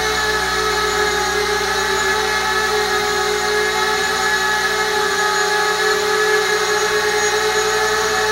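Eachine Falcon 180 quadcopter's four motors and propellers whining steadily as it hovers low, the pitch wavering slightly with small throttle changes.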